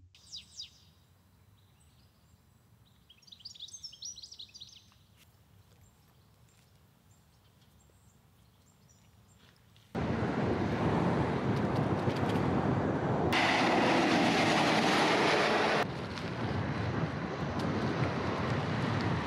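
Quiet outdoor ambience with two short bouts of bird chirping. About halfway through it cuts abruptly to a loud, steady rushing noise, which gets louder and brighter for a couple of seconds in the middle.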